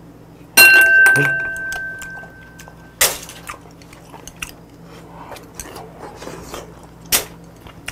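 Tableware at a clam meal: a sharp clink about half a second in, its ringing tone dying away over about two seconds, then two more sharp clicks about three and seven seconds in, with faint eating sounds between.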